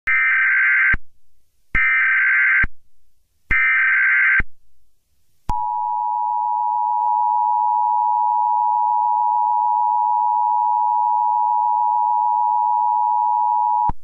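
Emergency Alert System opening sequence: three short bursts of SAME header data tones, each about a second long. About five and a half seconds in, the steady two-tone EAS attention signal starts and holds until it cuts off just before the end.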